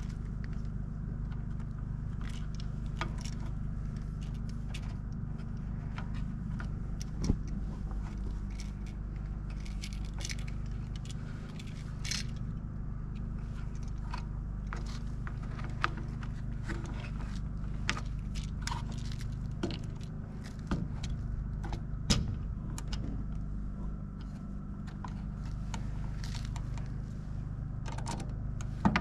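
Scattered small clicks and light metallic rattles at irregular intervals, like small metal parts and tools being handled, over a steady low hum.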